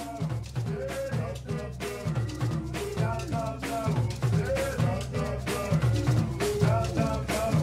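Background music with a steady drum-kit beat and a melodic instrument line over it.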